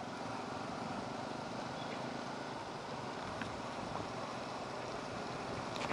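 TVS Apache 160 motorcycle's single-cylinder engine running at low speed, with steady road and wind noise, as the bike rides slowly on a wet road.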